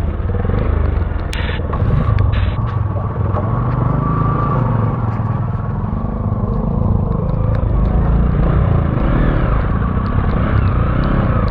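Motorcycle running steadily under way, with a continuous engine and road rumble and a few scattered clicks and rattles.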